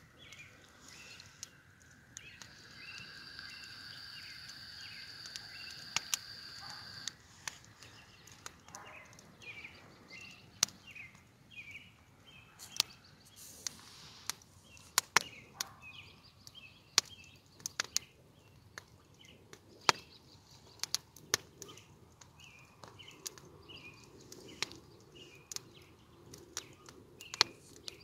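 Outdoor ambience of irregular sharp cracks and snaps, scattered through the whole stretch, over small birds chirping. A steady high whine sounds for a few seconds near the start, then stops suddenly.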